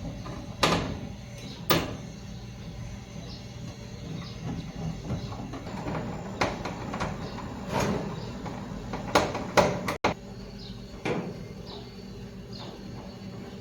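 Irregular sharp knocks and clanks of metal dryer parts being handled, about a dozen, over a steady low hum.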